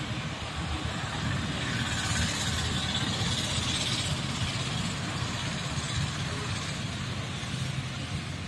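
A car driving past, its engine and tyre noise swelling about two seconds in and fading after about four seconds, over a steady low rumble of traffic.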